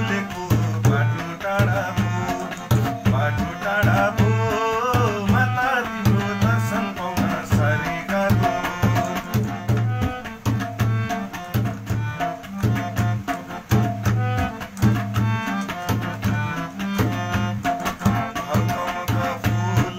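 Harmonium playing a bhajan melody, with a hand drum keeping a steady rhythm of deep strokes.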